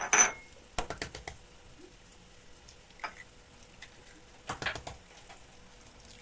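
Light kitchen clatter: scattered clicks and taps of utensils and dishes in small groups, the loudest with a brief clink at the very start.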